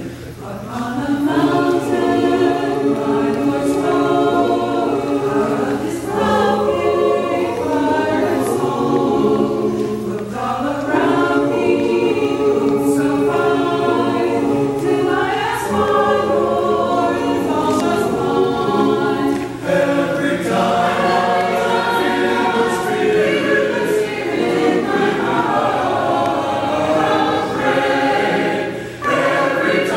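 Mixed church choir of men's and women's voices singing a hymn in the sanctuary, with short breaks between phrases.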